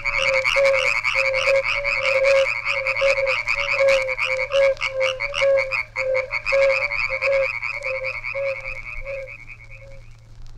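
A chorus of frogs croaking, many short calls repeating in quick succession, played back from a flexi-disc record over a steady low hum; the chorus fades out near the end.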